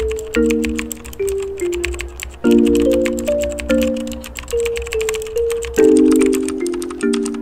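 Gentle background music, a simple melody of notes that each fade away over soft chords, with rapid computer-keyboard typing clicks running over it.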